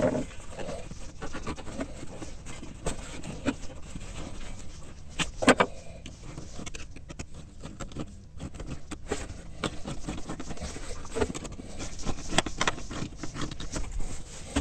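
Hands working parts into place inside an ATV's frame: irregular scrapes, light clicks and knocks, with one sharper knock about five and a half seconds in.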